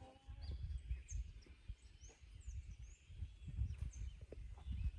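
Outdoor ambience: small birds chirping briefly and faintly over an uneven low rumble of wind on the microphone.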